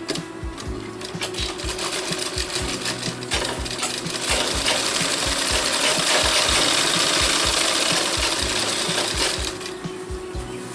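Sewing machine stitching a seam, its needle running in a rapid regular rhythm; it runs faster and louder from about four seconds in, easing back shortly before the end.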